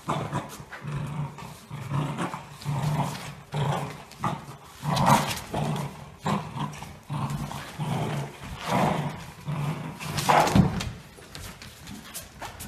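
Dogs growling in tug-of-war play over a rope toy: a low growl repeating in short pulses, with louder outbursts about five and ten seconds in.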